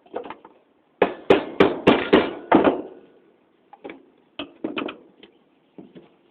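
Hammer blows on a brass bathroom-faucet body, tapping a valve out: a quick run of about six sharp metal strikes about a second in, then a few lighter knocks.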